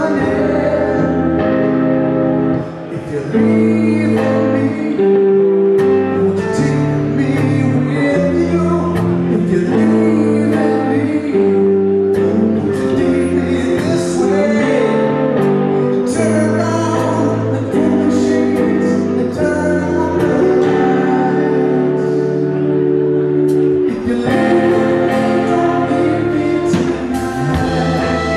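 Live rock band playing, with electric guitars and drums under a man singing lead, and a short drop in the music about three seconds in.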